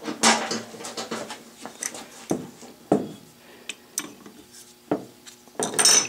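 Steel lathe dog being worked loose and taken off a steel arbor that holds an aluminium V-pulley. Irregular metal clinks and scrapes, with a cluster of louder knocks near the end.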